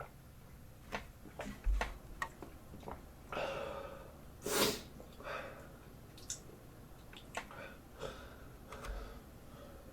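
A person breathing hard and sniffing from the burn of very spicy noodles, with one loud, sharp forceful breath about four and a half seconds in. Small mouth clicks and a couple of low thumps come between the breaths.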